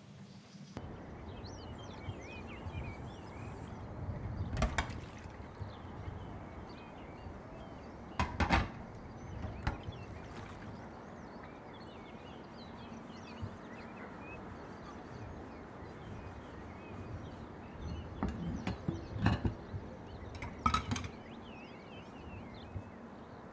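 Quiet outdoor lane ambience: a steady low background hum with small birds twittering on and off. Every few seconds there is a sharp knock or clink, with a small cluster of them near the end.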